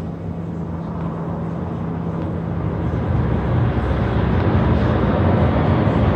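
Jet airliner engines rumbling across the airfield, growing steadily louder from about halfway through, over a steady low hum that fades at the same point.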